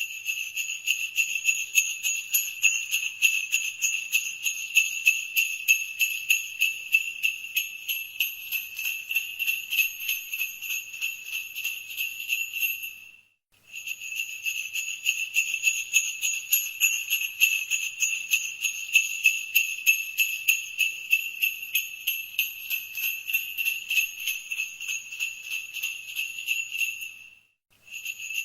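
Sleigh bells shaken continuously in a quick, even rhythm of about three jingles a second. The jingling fades out and stops briefly about halfway through, then starts again, and stops once more near the end.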